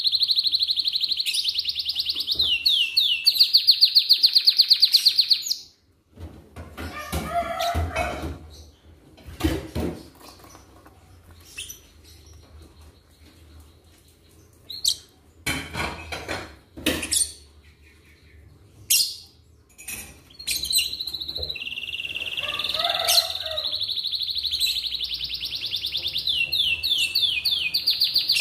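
Domestic canary singing a long, fast trill of rapidly repeated high notes, which breaks off about six seconds in. Some fifteen seconds of scattered short chirps and a few knocks follow, and then the long trill starts again about twenty seconds in.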